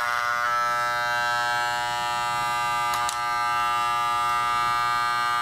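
Corded electric hair clippers running with a steady buzzing hum, with a brief click about three seconds in.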